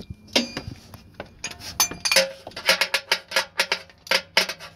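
A wrench clicking and clinking on metal in quick, uneven strokes, sparse at first and then about two or three a second, as the canister oil filter housing cap is tightened back down.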